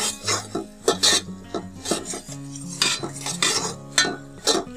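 A metal spatula scraping and knocking against an aluminium pot, about two or three strokes a second, as a wet mix of onions, chicken and ground spices is stirred.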